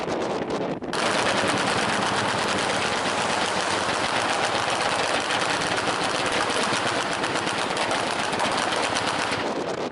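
Truck-mounted multi-barrel anti-aircraft gun firing one long, continuous burst. The burst starts about a second in and cuts off just before the end.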